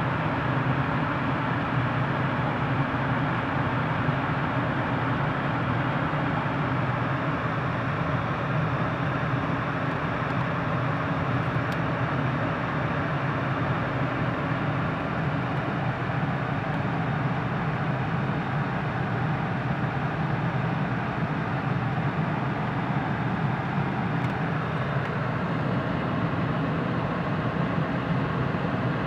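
Steady, unchanging hum of an idling car engine.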